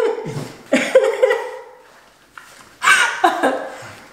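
Several short bursts of breathy vocal noises from people reacting to the burn of extremely spicy fire noodles: groans and puffs of breath about a second apart, with a quieter gap near the middle.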